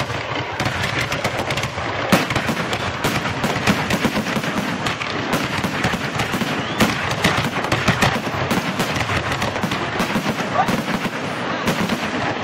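Fireworks going off in a rapid, continuous barrage of bangs and crackles, like machine-gun fire, with a few louder bangs standing out.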